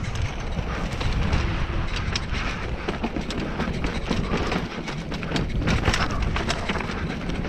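Mountain bike descending a rough dirt singletrack at speed: a steady rumble of tyres and air rushing past, broken by many sharp clicks and rattles from the bike over the bumpy ground.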